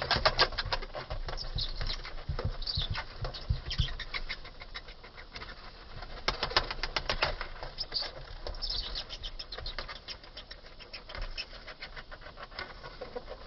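Death's-head hawkmoth beating its wings in several bursts, a rapid flutter of dry clicks.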